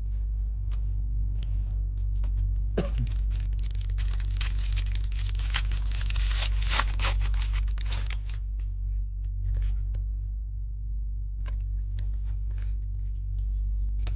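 A Pokémon card booster pack's foil wrapper being torn open and crinkled by hand, with a dense stretch of tearing and rustling in the middle and scattered scratches and clicks around it. A steady low hum runs underneath.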